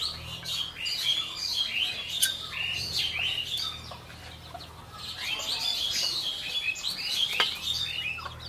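Small birds chirping, many short quick calls overlapping one another, with a lull about four seconds in. A couple of light clicks stand out.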